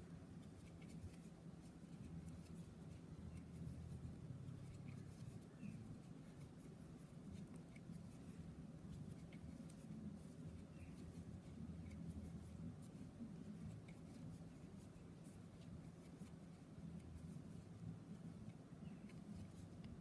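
Faint scratchy rustle and light ticks of a fine 1.25 mm steel crochet hook working 4-ply cotton thread into double crochet stitches, over a steady low hum.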